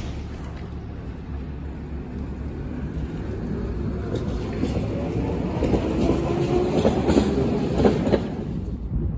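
A tram passing on street rails, its rumble growing louder, with wheels clacking over the rail joints and a steady whine, loudest about eight seconds in before it fades.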